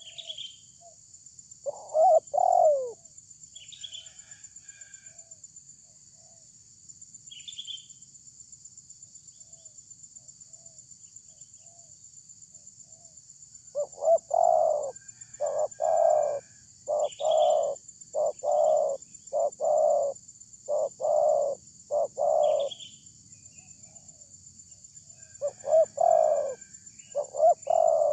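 Spotted dove cooing: a short burst of coos about two seconds in, then long runs of evenly repeated coos through the second half. A steady high-pitched hiss and faint chirps of another small bird sound beneath.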